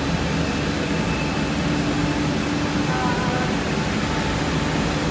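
Steady machinery drone with a constant low hum from a running industrial supercritical CO2 extraction plant.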